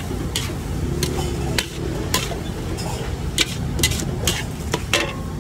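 About ten sharp, irregular clinks and knocks of kitchen utensils striking metal and hard surfaces, over a steady low rumble.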